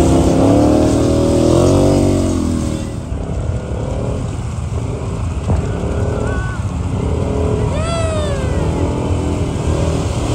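Snorkeled ATV engine revving up and down as it pushes through deep muddy water. About eight seconds in comes a short high squeal that rises and then falls.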